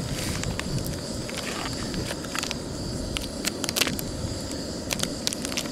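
A plastic sausage wrapper being torn open and handled: scattered sharp crinkles and crackles over a steady low rumble.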